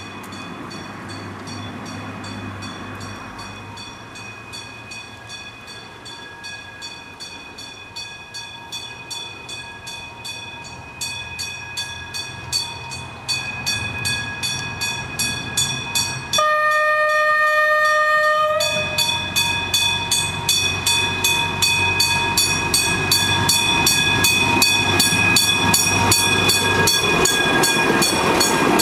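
Vintage two-axle diesel railcar approaching and passing close by, its running noise growing steadily louder with a regular clatter. A horn blast of about two seconds sounds just past the middle.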